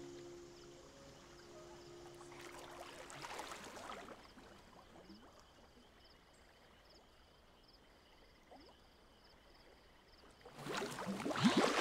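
Lake water: a soft swish about three seconds in, a quiet lull, then a loud splash and rush of water near the end as swimmers break the surface after holding their breath underwater.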